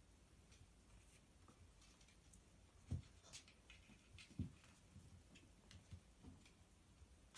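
Near silence with faint scratching and tapping of kittens' paws on a cardboard play box, and two soft thumps about three and four and a half seconds in.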